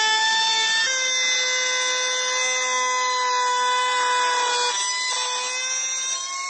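Table-mounted router spinning a bearing-guided profile bit at high speed: a steady, high whine with a light hiss as the bit cuts a moulded profile along the edge of a wooden board. The pitch shifts about a second in.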